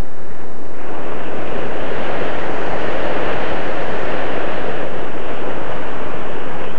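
Loud steady rush of wind buffeting the microphone of a camera mounted on the nose of an RC flying wing in flight. No motor whine is heard, so the plane's electric motor is off and it is gliding.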